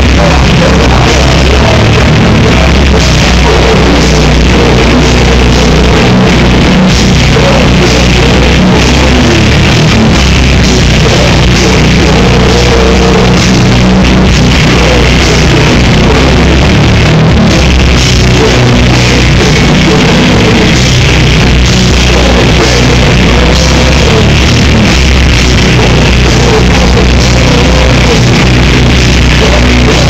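Live rock band playing loud in a small club, with a drum kit and guitars, recorded through a phone's microphone that is overloaded, so the sound is distorted and clipped.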